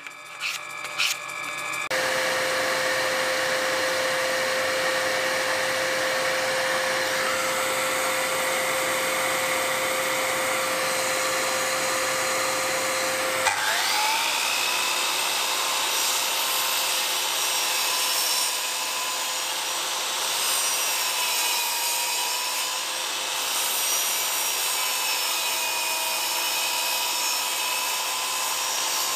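A drill press runs steadily while boring plywood. About halfway through, a DeWalt sliding miter saw spins up with a rising whine and keeps running. Its pitch dips a few times as it cuts slots into a drilled plywood strip.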